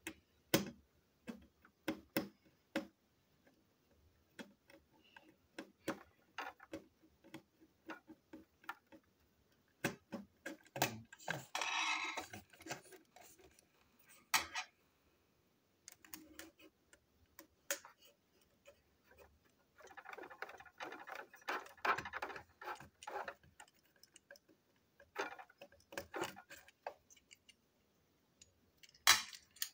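Irregular light clicks and taps of a small plastic toy-train motor unit and a metal screwdriver being handled while it is taken apart, with two longer stretches of clatter about a third and two-thirds of the way through.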